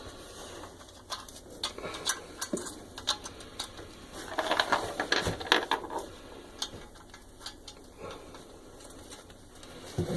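Steel washers and nuts clinking as they are fitted onto a toilet bowl's closet bolts and run down with a 1/2-inch nut driver: irregular small metallic clicks, busiest about four to six seconds in.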